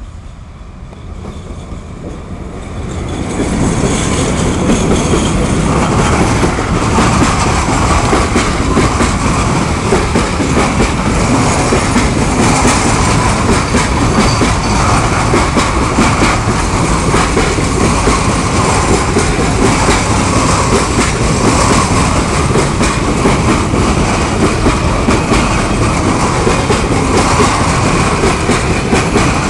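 Freight train of open coal wagons rolling slowly past behind a PKP ET22 electric locomotive, the wheels running over the rails. It grows louder over the first few seconds as the locomotive comes by, then holds steady as the wagons pass.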